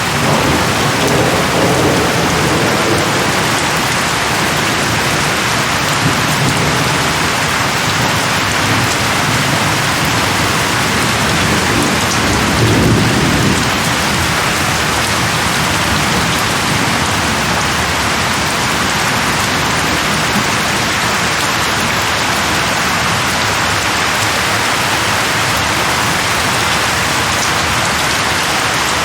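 Steady heavy rain hissing, with low rumbles of thunder near the start and again about halfway through.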